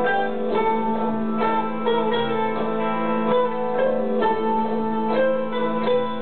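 Tambura played with a pick: a quick run of plucked melody notes over a steady low drone.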